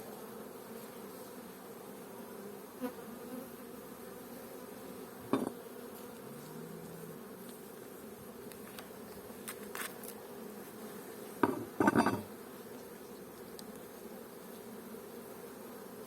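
Honeybee colony buzzing steadily from an opened hive, with a few short sharp knocks, the loudest pair about twelve seconds in.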